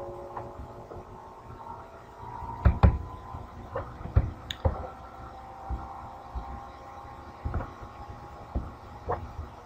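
Irregular clicks and soft knocks from a computer mouse being clicked and scrolled on a desk, the loudest pair about three seconds in, over a faint steady hum.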